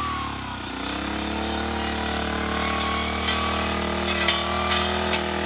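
Small engine of a grass-cutting machine running steadily. Its pitch rises about half a second in, then holds, with a few sharp ticks near the end.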